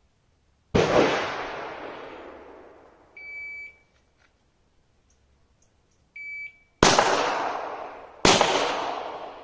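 Three pistol shots, the first about a second in and two more a second and a half apart near the end, each with a long echoing decay. Between them come two short, high electronic shot-timer beeps, the second just before the pair of shots.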